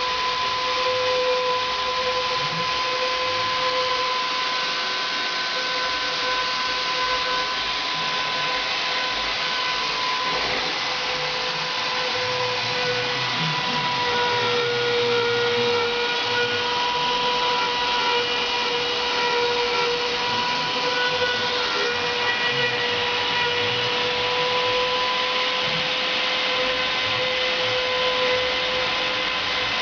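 CNC router spindle running at speed while cutting: a steady high whine that wavers slightly in pitch, over a continuous rushing noise.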